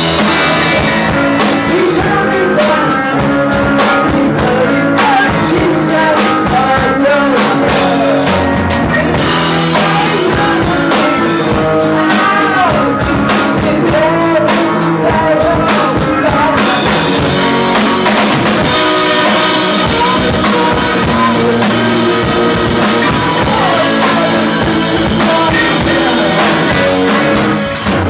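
Live rock band playing: electric guitar and drum kit, with a male voice singing over them. The level dips briefly just before the end.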